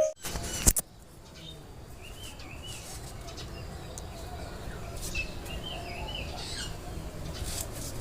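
Birds chirping in two short warbling phrases over a steady low background hum, with a sharp click near the start.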